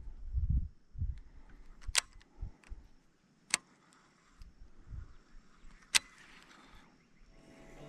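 Low rumbling bumps on the microphone with three sharp clicks a second and a half to two and a half seconds apart. Music fades in near the end.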